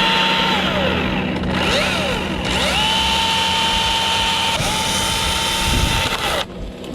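Battery-powered electric chainsaw cutting, its motor spinning up to a steady whine, holding, and winding down several times as the trigger is pulled and released. It stops shortly before the end.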